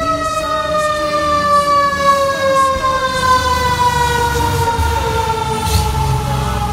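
Fire engine siren sounding: one long tone slowly falling in pitch, over the low running of the truck's engine.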